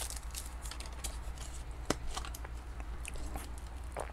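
Light handling noise from a clear plastic deli cup of moss: scattered faint clicks and rustles, with one sharper click about two seconds in.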